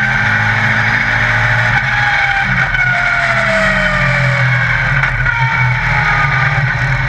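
Yamaha XJR1300 air-cooled inline-four motorcycle engine in a Legend race car running hard on track, heard from inside the cockpit. The engine note falls for a couple of seconds midway as the revs drop, then holds steady.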